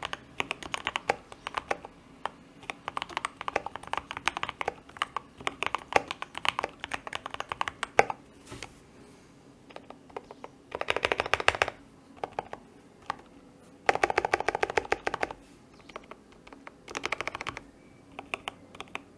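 Typing on a custom 75% mechanical keyboard with lubed Gateron Ink Black linear switches, filmed switches, an aluminium plate and foam-filled case: steady clacking keystrokes for the first half, then a pause broken by a few single key presses, then three short flurries of very fast keystrokes.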